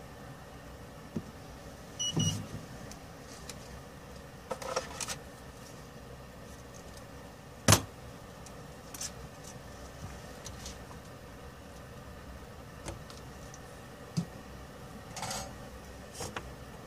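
Scattered clicks and taps from handling tools at a repair bench over a steady low background noise, with a single sharp click, the loudest sound, about eight seconds in. A knock about two seconds in carries a short high tone.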